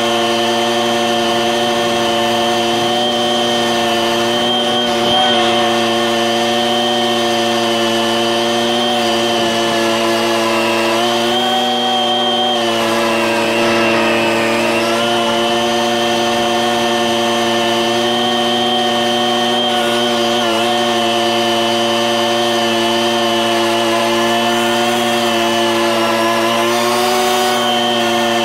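Lawn mower engine running steadily at full throttle while cutting grass. Its pitch sags briefly about halfway through, then recovers.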